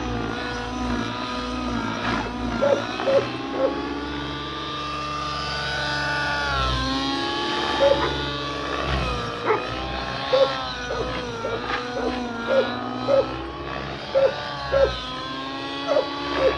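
Nitro-engined RC helicopter flying, the whine of its engine and rotor rising and falling in pitch as it manoeuvres. Short sharp sounds recur throughout, often two or three close together.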